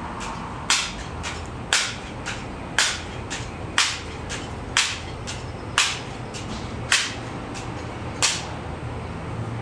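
A multi-pump Benjamin 392 air rifle being pumped up before a shot: about eight sharp clacks roughly a second apart, each with a fainter click between them.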